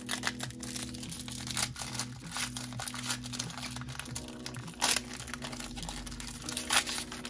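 Foil wrapper of a Pokémon booster pack crinkling and tearing as it is pulled open by hand, in a run of short crackles with a few louder rips near the end. Steady background music runs underneath.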